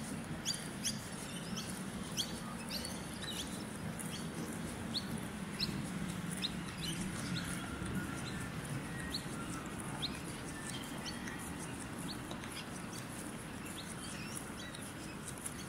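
Birds chirping: many short, sharp rising chirps in quick irregular succession, over a steady low background rumble.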